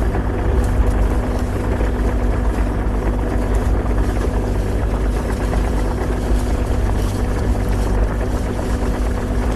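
Kubota mini excavator's diesel engine running steadily at a constant speed, with a steady hum.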